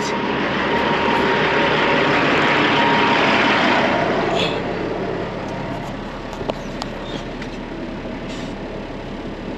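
Vehicle engine and road noise heard from inside the cab while driving, louder for the first four seconds or so, then settling to a quieter steady run.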